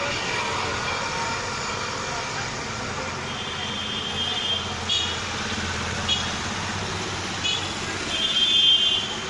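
Road traffic with vehicle horns honking: a few short toots, then a longer, louder honk near the end.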